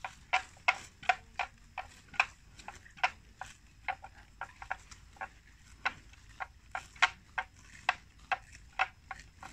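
Water buffalo grazing: a quick, irregular run of crisp clicks and snaps, two or three a second.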